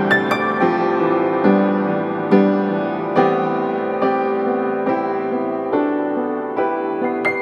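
Slow background piano music, a new note or chord struck roughly every second and left to ring.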